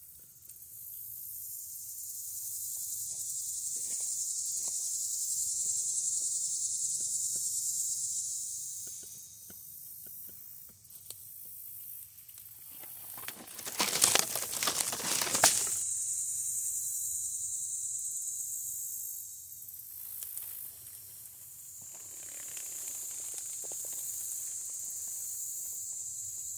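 Dry leaf litter rustling and crackling, with a loud stretch of close rustling about halfway through. Under it runs a steady high-pitched hiss that fades in and out.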